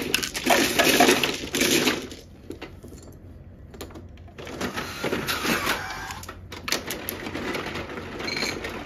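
Mahjong tiles clattering as hands sweep them into the centre opening of an automatic mahjong table, loudest in the first two seconds. After a short lull, more rattling and clicking as the table brings up the newly shuffled walls.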